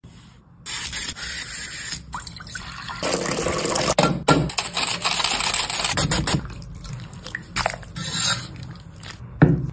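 Potato being scraped across a metal mandoline slicer, with the slices dropping into a bowl of water, then water splashing and sloshing as they are stirred with a wire skimmer. The sound is uneven, with a few sharp knocks.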